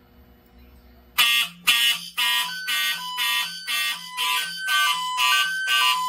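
Fire alarm system's notification horns start sounding about a second in, a loud, evenly pulsed alarm at about two pulses a second. The system has gone into alarm because a smoke detector was tripped with a test magnet.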